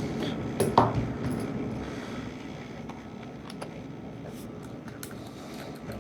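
Small screwdriver driving a keyboard retaining screw into the underside of a laptop's plastic case: a couple of sharp clicks near the start, then a few light ticks and scrapes over a steady low background noise.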